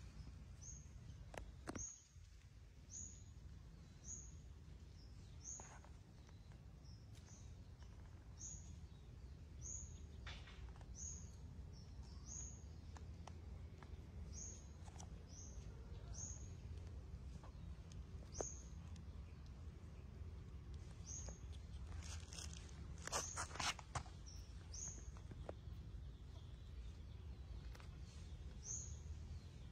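Faint, short, high-pitched bird chirps repeated about once a second over a steady low rumble, with a few soft clicks.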